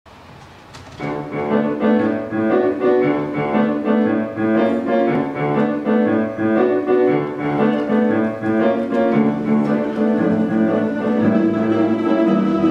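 Ensemble of Russian folk instruments playing a jazz-style piece, coming in about a second in after a quiet start.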